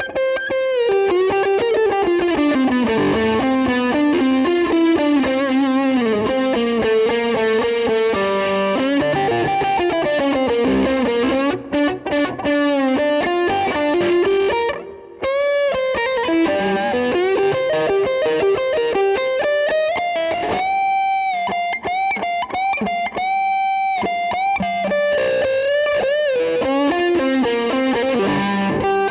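Electric guitar, a replica of a Gibson Les Paul Custom, playing a single-note lead melody: running phrases, then long held notes with vibrato a little past the middle, with a short break about halfway.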